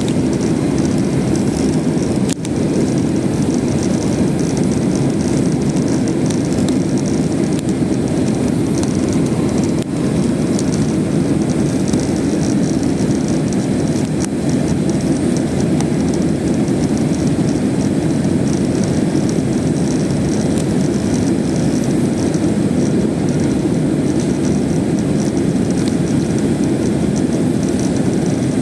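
Steady jet engine and airflow roar inside an airliner cabin during the climb after takeoff, with a faint click about two seconds in.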